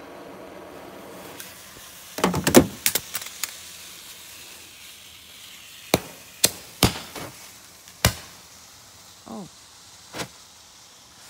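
Handheld roman candle fireworks firing: a quick cluster of sharp pops with hissing about two seconds in, then single sharp pops a second or two apart. A brief falling whistle comes near the end.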